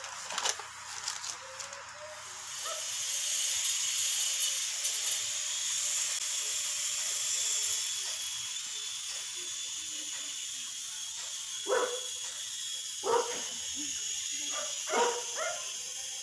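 A toy mini quadcopter drone's tiny motors and propellers spin up about two seconds in and then run with a steady high whir. A dog barks a few times in the second half.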